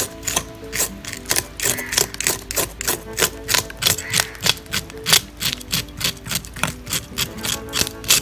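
Serrated fish scaler scraping the hard scales off a large sweetlips on a wooden board, in quick repeated strokes about three a second. Background music plays underneath.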